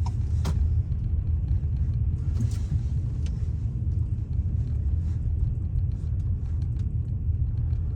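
Car driving on a snowy road, a steady low rumble heard from inside, with a sharp click about half a second in.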